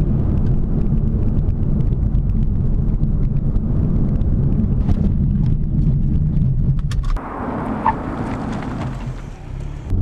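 Volvo V60 Polestar's road and engine noise heard inside the cabin at about 55 mph, a loud steady low rumble. About seven seconds in the rumble falls away sharply and a hiss takes over for about two seconds as the car brakes hard for a stopping test.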